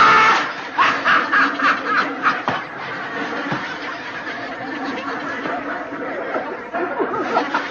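Laughter from an old TV comedy clip: a loud outburst right at the start, then rapid pulsing laughs and chuckling that settle into a steadier mix.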